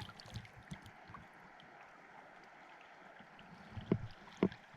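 Steady rush of stream water flowing, with a few faint knocks in the first second and again about four seconds in.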